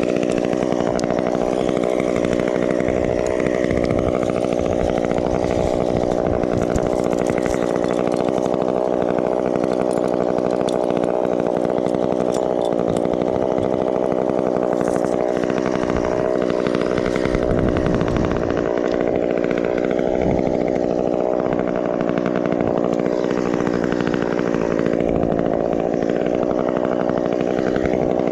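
Chainsaw running steadily, its pitch changing little.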